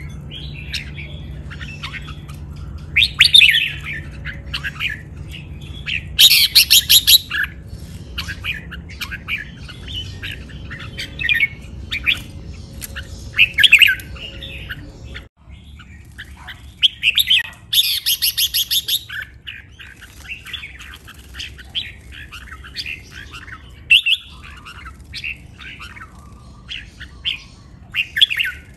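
Caged red-whiskered bulbuls singing and calling: a busy mix of short chirps and whistled phrases, broken twice, about six seconds in and again near eighteen seconds, by a loud fast run of repeated notes.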